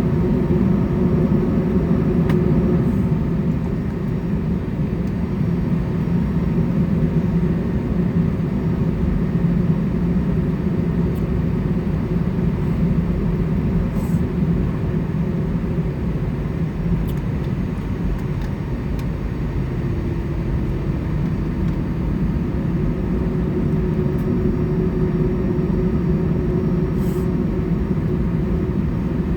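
Steady cabin noise inside an Airbus A320 on the ground: a low rumble of the jet engines and airflow, with a faint steady hum, no rising surge of a takeoff roll.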